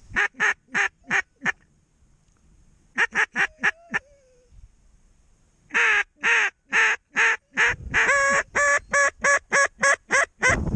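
Loud duck quacks in three runs: five evenly spaced quacks, a short second run, then a long, quicker series of about a dozen.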